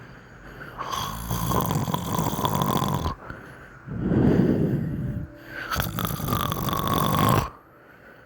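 A 12-year-old boy snoring loudly with his mouth open: three long rasping snore breaths, the middle one the loudest.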